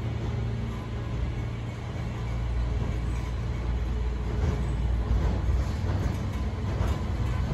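An approaching ballast work train, its low engine rumble growing louder, with a dense metallic rattling from the wheels and cars joining about four seconds in.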